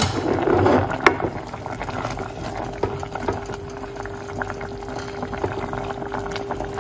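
A pot of quinoa and squash bubbling at the boil, stirred with a wooden spoon, with one sharp knock about a second in. A faint steady tone comes in about two seconds in and holds.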